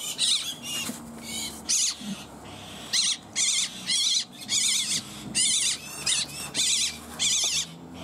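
A common myna giving a rapid series of short, high-pitched wavering squawks, about one or two a second: distress calls from the wet, grounded bird as a dog noses at it.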